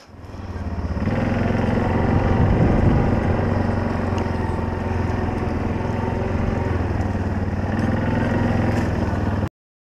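ATV (four-wheeler) engine running steadily under a rider as it travels along a trail. It fades in over the first second and cuts off abruptly near the end.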